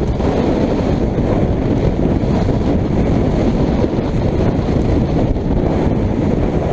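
Wind rumbling on the microphone aboard a small motorboat under way in rough sea, blended with the boat's running noise and the waves into one steady low noise.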